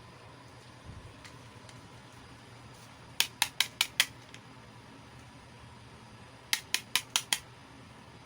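Light, sharp clicks of small hard plastic miniature toy pieces, in two quick runs of five, about five clicks a second. The second run comes about three seconds after the first.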